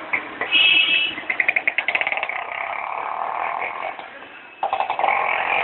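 A motor vehicle passing close by on the street, its engine running with a rapid, even pulsing note that rises and falls, with a brief high tone near the start.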